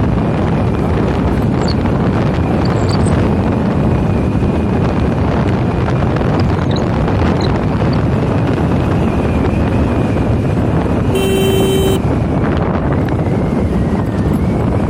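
Loud, steady wind rumble buffeting a phone's microphone. About eleven seconds in there is a short single beep lasting under a second.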